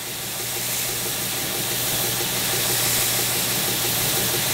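Stationary belt sander running with a steady low hum while its worn 100-grit belt grinds a metal lathe tool rest held against it, a steady hiss that builds slightly. The rest is being rolled against the belt to round its edge and grind out the nicks left by catching chisels.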